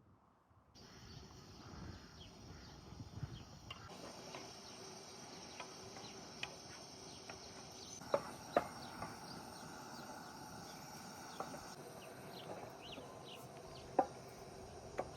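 Insects chirping steadily in the background, with a few sharp clicks or knocks scattered through, the loudest just past the middle and near the end.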